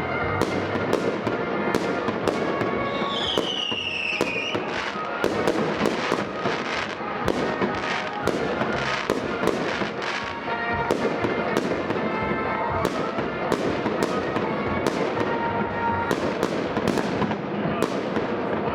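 Fireworks display: a dense, continuous run of bangs and crackles, with one falling whistle about three to four and a half seconds in.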